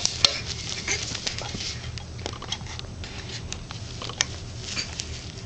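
A baby crawling on carpet and grabbing a thin metal chair leg: a scatter of irregular light taps and clicks, over a steady low hum.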